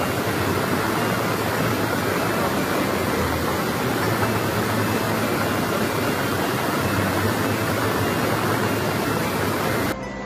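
Rushing floodwater: a loud, steady rush of noise that cuts off suddenly near the end.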